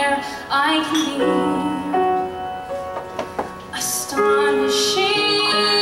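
A woman sings a musical-theatre ballad into a microphone in full voice over piano accompaniment. About four seconds in she settles onto a long held note.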